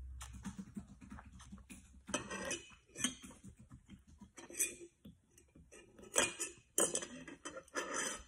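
Metal fork and spoon clinking and scraping against a small ceramic dipping dish, about half a dozen separate clinks a second or so apart.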